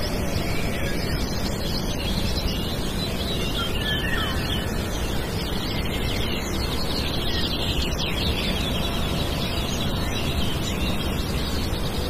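Many small birds chirping and singing all through, over a steady background rush.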